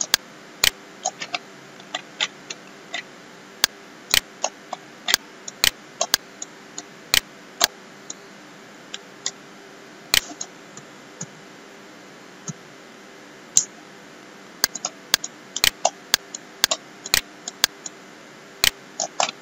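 Computer mouse clicking: irregular single clicks and quick pairs, over a faint steady hum.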